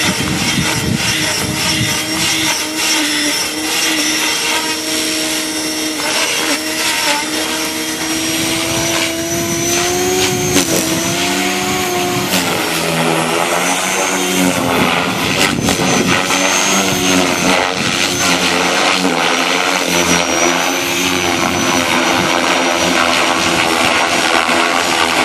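Align T-Rex 500X electric RC helicopter in flight: a steady whine of its motor and rotor blades, made of several tones whose pitch drifts up and down.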